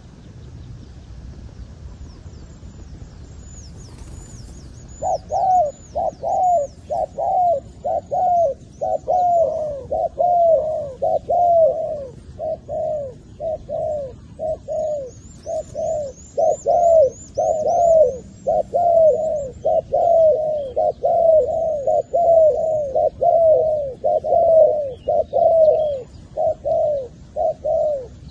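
Spotted doves cooing: a long, fast run of short coos, about two a second, each falling in pitch, starting about five seconds in. Faint thin chirps of a small bird come over it near the start and in the middle.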